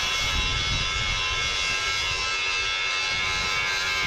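Handheld angle grinder running steadily against steel, a continuous high grinding whine.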